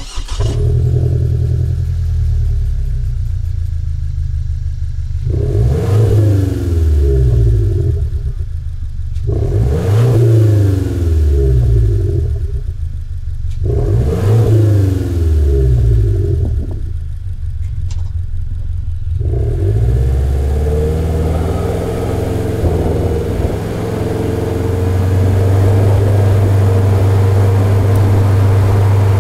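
Exhaust of a Subaru SK5 Forester's 1.8-litre turbocharged flat-four through an STI performance muffler, tuned for an unequal-length boxer sound, on hard laps. The revs rise and fall repeatedly with short quieter lifts off the throttle, then hold a long steady note for the last several seconds.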